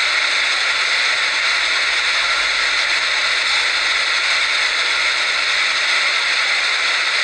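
Fast-flowing floodwater rushing and churning, a steady hiss of running water.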